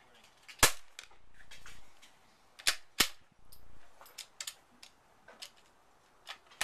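A Savage Mark II .22 LR bolt-action rifle fires one sharp shot about half a second in. Over the next few seconds come sharp metallic clacks and smaller clicks as its bolt is worked, the loudest a pair about two seconds after the shot.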